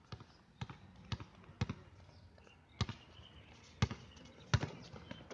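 A basketball being dribbled on a hard outdoor court: about seven sharp bounces, roughly two a second in the first two seconds, then more spread out.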